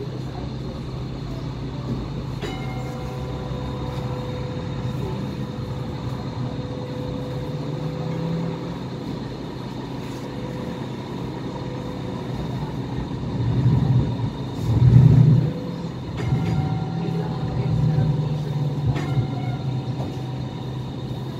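Hong Kong Light Rail car running along its track, heard from inside the cabin: a steady low rumble with a faint steady whine. The rumble swells louder for a couple of seconds about two-thirds of the way through.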